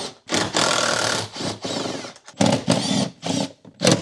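A cordless power driver with a 10 mm socket running in short trigger pulls, backing out trim screws: a rattling, buzzing run of about two seconds, a second run of about a second, and a brief burst near the end, its motor whine rising and falling with each pull.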